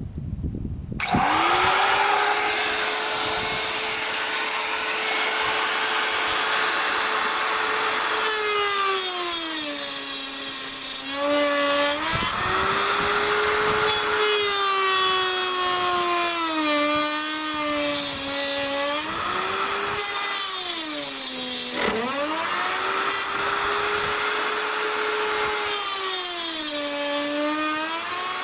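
Handheld electric power tool motor starting up and running at high speed. Its pitch sags several times as it bogs under load and climbs back as the load comes off, the sign of the tool being worked through material.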